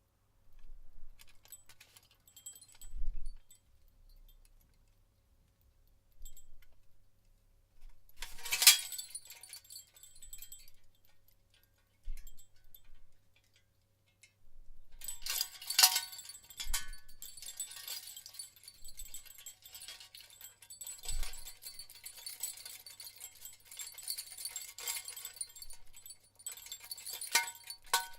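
Handmade Indian copper bells on a hanging door chime clinking and ringing as they are set moving: a few light clinks at first, one louder ring about eight seconds in, then continuous jingling from about halfway.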